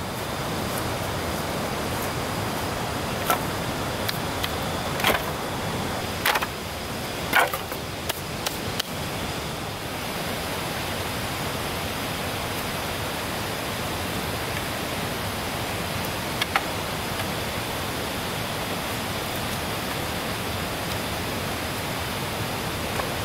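Heavy rain falling in a steady hiss, with a few short sharp taps in the first third and one more about two-thirds of the way through.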